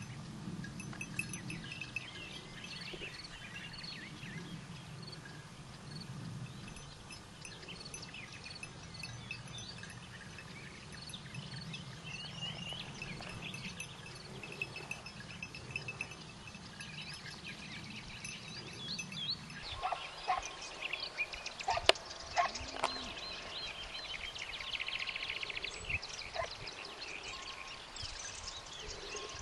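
Wild birds chirping and singing in the countryside, many short calls throughout, over a low steady rumble that drops away about two-thirds of the way through; a few sharp clicks follow.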